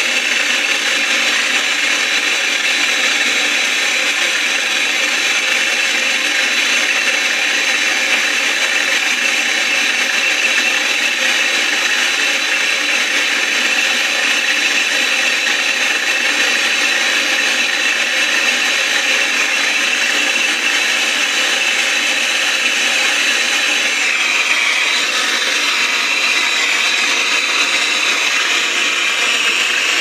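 Handheld gas torch burning with a steady hiss while it heats a copper refrigerant pipe joint for brazing.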